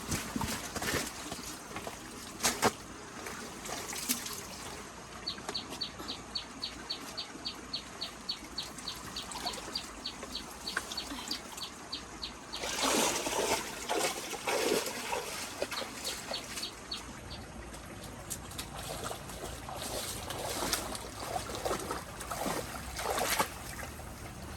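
Floodwater trickling and splashing, with louder splashes a few seconds in, around the middle and near the end. A quick run of short high chirps, about four a second, sounds through the middle part.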